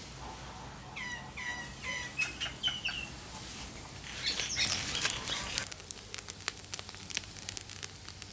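Birds call in short whistled chirps. From about five seconds in comes a fast crackling sizzle of skewered squid grilling over a charcoal clay stove.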